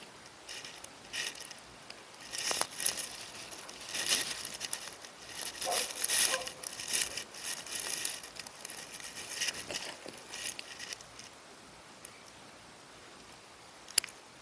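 Plastic wrapping being crumpled and handled, in irregular crinkly bursts that die away after about ten seconds, followed by one sharp click near the end.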